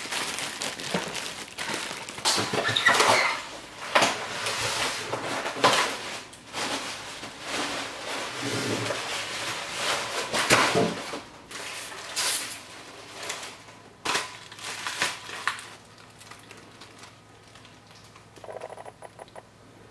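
Unpacking noise: plastic wrap crinkling and polystyrene foam packing blocks scraping as they are pulled off a boxed exercise bike, in an irregular run of rustles and crackles that grows quieter near the end.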